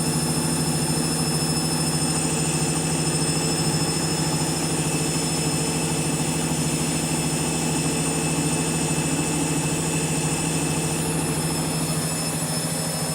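Candy washing machine spinning at high speed on its final spin, set to 1200 rpm: a steady, loud motor whine and drum hum with a fast, even pulsing.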